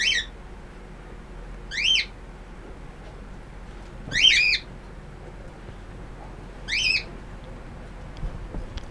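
A 9-week-old Great Dane puppy squealing during play: four short, high-pitched squeals, each falling in pitch, spaced two to three seconds apart.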